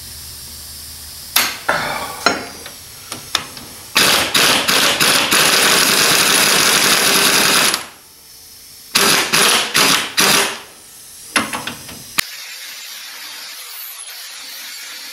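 Pneumatic impact wrench hammering on a bolt in a leaf-spring pack: one long burst of about four seconds, then several short bursts, after a few knocks of tools on the bench. From about twelve seconds in, a small angle grinder runs with a steady high whine.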